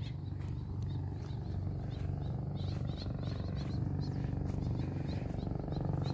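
Steady low rumble, with faint, quick high chirps of small birds over it from about two seconds in, several a second.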